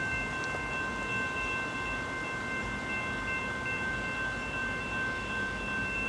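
Locomotive air horn sounding one long, steady blast, several notes held together as a chime chord.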